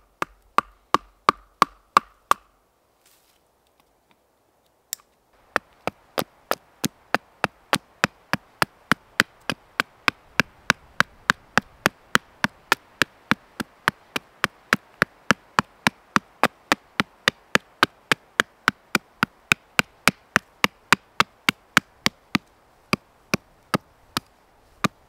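A hand tool striking wood in a steady, rapid rhythm of sharp knocks, about three a second. A short run of strikes opens, then a pause of a few seconds, then a long unbroken run.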